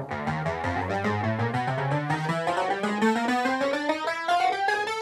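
Roland Alpha Juno 2, a six-voice DCO analogue synthesizer, played one key after another in a fast run climbing steadily from the low end of the keyboard toward the top. Each key is being tested in turn to find the ones that don't sound.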